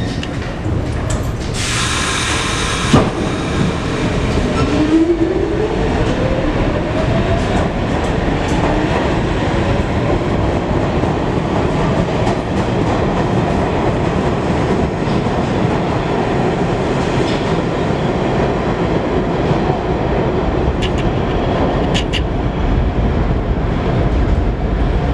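R46 subway train pulling out of the station. About two seconds in there is a loud hiss of air as the brakes release, followed by a single clunk. A motor whine then rises in pitch as the train accelerates, and gives way to a steady rumble and clatter of wheels on rail, with a few sharp clicks near the end as the train leaves.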